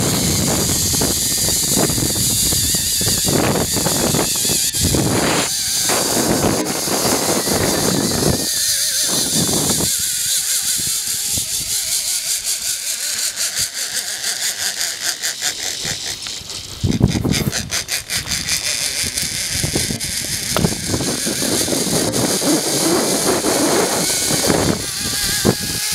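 Zipline trolley running along a steel cable with a steady high whir, and wind rushing over the microphone, gusting in the first half.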